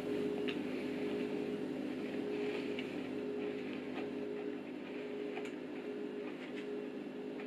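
Faint chewing and a few light clicks of a fork against a plate of cake, over a steady low hum.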